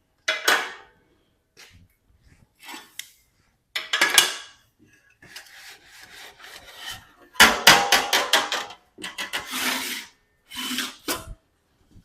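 16-gauge sheet-metal piece being worked out of a homemade pipe anvil and handled: scraping and rubbing of steel, in separate strokes, with a quick run of sharp clanks about seven and a half seconds in.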